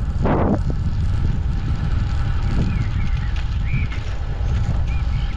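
Wind rumbling steadily on the microphone while riding a bicycle along a road.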